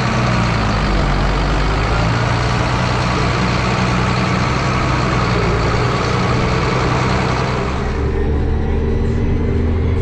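Large vehicle engine running loud with a strong hiss, easing about eight seconds in to a lower, steadier engine hum.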